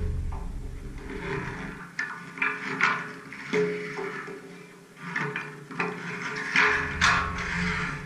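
Background music with held tones, over which come several sharp knocks.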